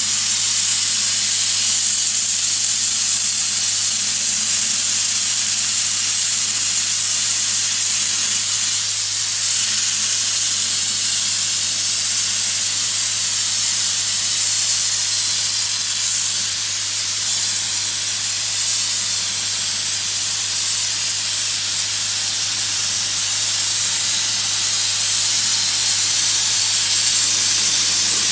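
Bead blaster firing a continuous stream of glass beads on compressed air against glazed pool tile, a loud steady hiss as it strips calcium scale from the waterline. A steady low hum runs underneath, and the hiss dips briefly about 9 seconds in and again around 16 seconds.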